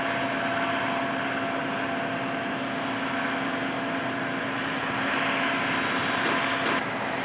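An engine running steadily with a constant droning tone. A louder hiss joins about five seconds in and cuts off suddenly near the end.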